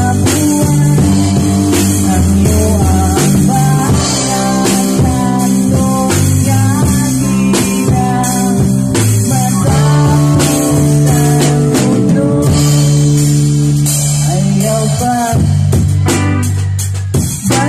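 Live band playing a song: a man singing into a microphone over electric guitars and a drum kit. The music dips briefly near the end before the drums come back in.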